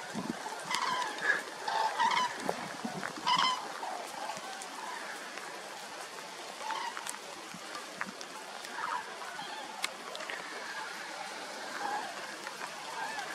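A flock of common cranes (Grus grus) calling in flight: loud, pitched calls come thick in the first four seconds, then more scattered. A steady hiss of rain runs underneath.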